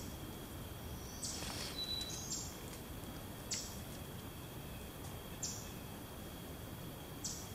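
Quiet woodland ambience with a small bird chirping: five short, high chirps spaced one to two seconds apart, over a faint steady high hum.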